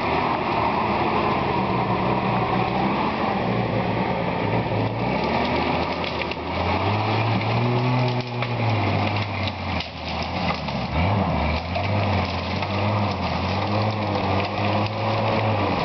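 Open-top jeep's engine running and revving up and down as it drives through dense brush, with branches cracking and scraping against the vehicle, most of them from about five to eleven seconds in.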